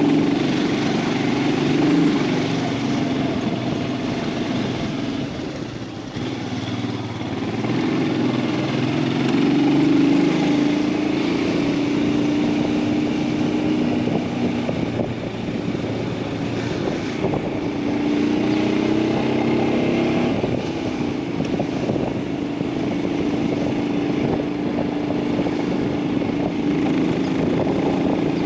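Royal Enfield Himalayan 411's single-cylinder engine running under way, its pitch rising and falling with the throttle, over wind and road noise. It eases off briefly about six seconds in, and the pitch climbs a couple of times later on.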